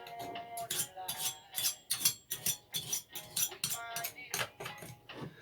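Small metal engine parts and hand tools clinking and rattling as they are handled, a string of sharp irregular clicks with brief metallic ringing.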